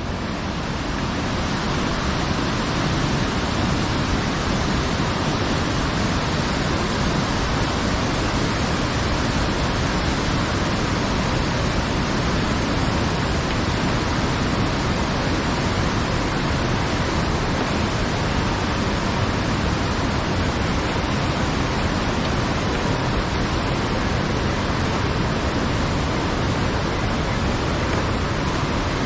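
Steady rushing of a glacial river over rocks below a suspension bridge, an unbroken roar with no let-up.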